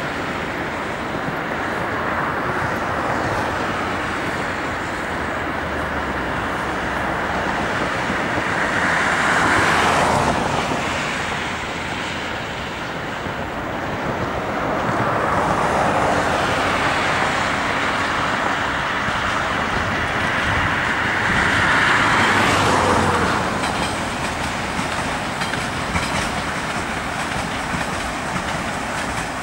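A train passing, its wheels clattering on the rails, over a steady rumble of traffic. The noise swells twice, about a third of the way in and again about three quarters of the way in.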